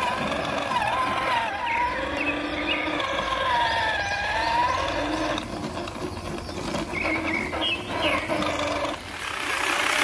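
Whine of a small electric motor in a toy RC truck, its pitch wavering up and down with the throttle during the first half. After about five seconds it gives way to a rougher, grittier running noise.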